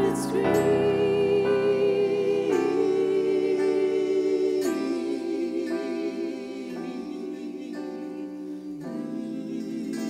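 Music from a slow song: long held, wavering notes, with the chord changing every two seconds or so.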